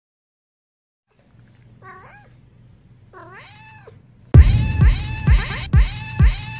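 Two cat meows, then about two-thirds of the way in loud music starts, with a steady beat about twice a second and meows repeating along with it.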